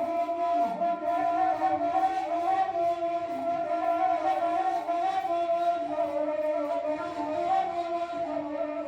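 Ney, the end-blown reed flute, playing a slow melody of held notes joined by small pitch steps and slides.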